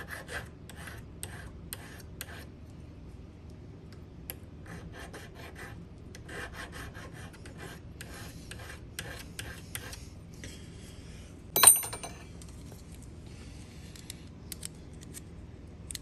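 Hand file stroking back and forth across a steel key blank clamped in a vise, smoothing freshly cut notches, at about two strokes a second with a short break. After the filing stops, a single sharp clack is the loudest sound.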